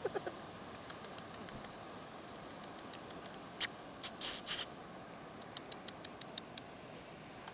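Rock hyrax nibbling and scratching at loose gravel: a scatter of small clicks and crunches, with a brief louder rustle about four seconds in.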